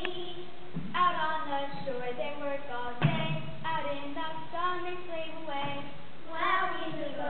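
Children singing a melody in long held and sliding notes, with new phrases starting about a second in and again about three seconds in.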